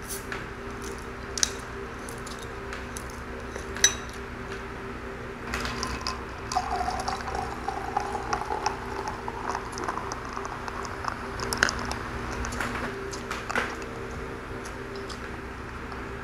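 A few clicks and clinks as the cap of a glass Coca-Cola bottle is worked open, then cola poured into a drinking glass for a few seconds, its filling tone rising slightly as the glass fills. Light crackling fizz and small clinks follow.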